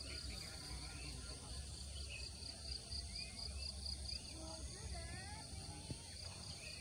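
Outdoor ambience of insects making a steady, pulsing high chirr, with scattered bird calls and a low rumble of wind on the microphone.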